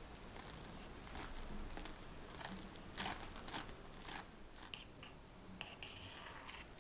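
Metal offset spatula spreading mascarpone cream over a ladyfinger layer in a ceramic dish: a run of soft, irregular scraping strokes, with a few sharper, brighter scrapes near the end.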